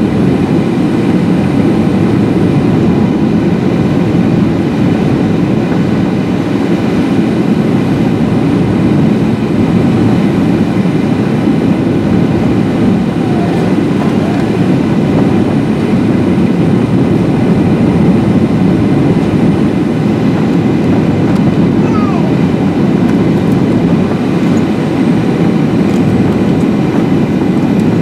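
Boeing 737-800 cabin noise: a loud, steady deep rumble of engines and airflow heard from a passenger seat, unchanging throughout.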